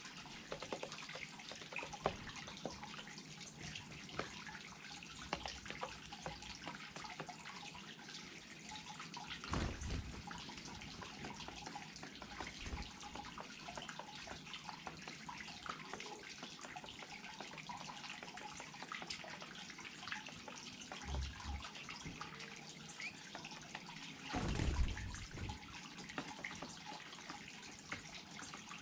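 Small garden waterfall splashing steadily, with fine dripping and trickling. There is a brief low thump about ten seconds in and another near the end.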